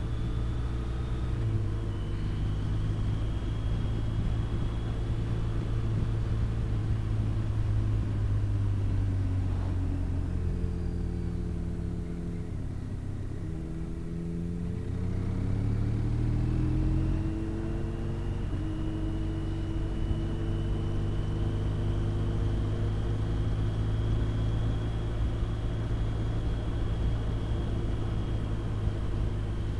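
Engine of a BMW RT touring motorcycle's boxer twin running along at road speed, with road and wind noise. About a third of the way in the engine note falls as the bike slows for a bend, then climbs again as it accelerates away.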